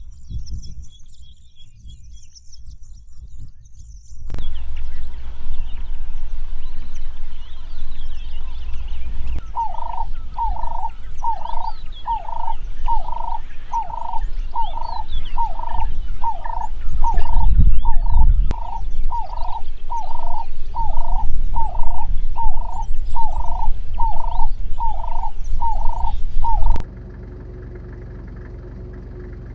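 Birds chirping and twittering over a low rumble, with a steady repeated call of about one note a second running through the middle and later part. Near the end the sound cuts abruptly to a quieter steady hum.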